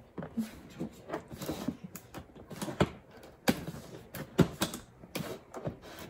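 Scissors cutting into a cardboard box: a run of irregular sharp snips and clicks.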